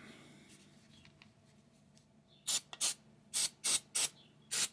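Aerosol spray can hissing in six short, quick bursts, starting about halfway through.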